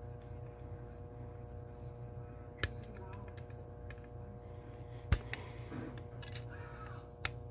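Small screwdriver clicking and scraping against a screw in the metal frame of a 1938 Western Electric 5H rotary dial: a handful of sharp metallic clicks, the loudest about two-thirds of the way through, over a steady low background hum.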